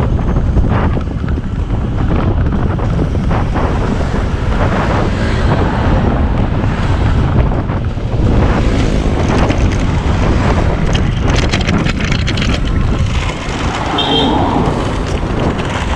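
Wind rushing over the microphone of a camera riding along on a moving bicycle: a loud, steady low rumble.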